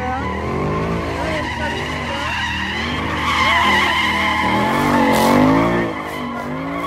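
Car doing donuts: tires screeching steadily while the engine revs rise and fall over and over, loudest a few seconds in.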